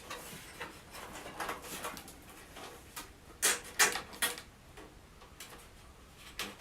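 Handling noise of a CPU 8-pin power cable being pushed and pulled through a PC case's cable-management cutouts: light rustling and scraping, with a few sharper clicks a little past halfway.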